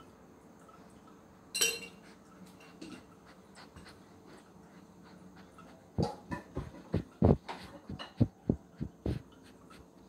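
A tabby cat bumping and rubbing against the camera close to the microphone: about ten soft, low thumps in a quick run over some three seconds, starting about six seconds in. A single sharp click comes earlier, about a second and a half in.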